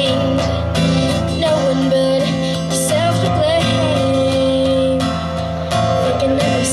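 A woman singing a slow melody with long, wavering held notes over a strummed acoustic guitar.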